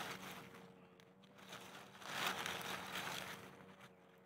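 Faint rustling of dry leaves and grass, loudest about two seconds in, over a faint steady hum.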